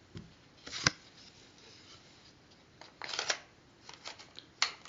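Handling noises from a paper booklet: a sharp click a little under a second in, a short rustle about three seconds in, and a few small clicks near the end.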